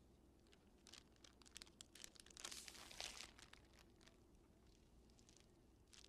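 Faint crinkling and rustling of a crisp packet being handled, with scattered crackles and a denser burst about halfway through.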